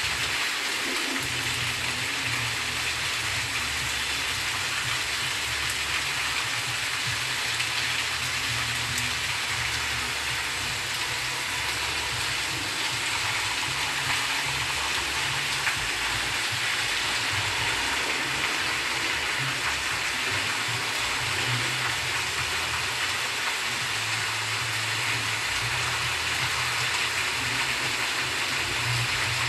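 Heavy rain pouring down on trees, leaves and paving: a steady, dense hiss that holds unbroken throughout, with an uneven low rumble underneath.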